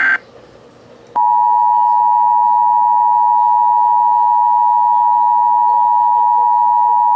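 Emergency Alert System broadcast: the tail of a digital header data burst, a brief pause, then the steady two-tone EAS attention signal starting about a second in and holding at a constant pitch, marking the start of a severe weather warning.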